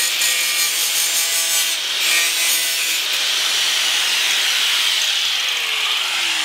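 Angle grinder with a thin metal cutting wheel slicing through the sheet-steel lip of a car's front fender, a steady loud grinding whine. Near the end the grinder comes off the metal and its motor winds down with a falling pitch.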